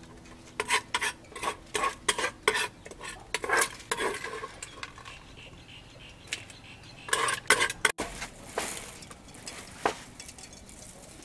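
Wooden pestle knocking and stirring in a clay mortar with a spoon clinking against it, as shredded green papaya salad is pounded and mixed: quick irregular knocks for the first few seconds, then a short burst about seven seconds in and a few single knocks near the end.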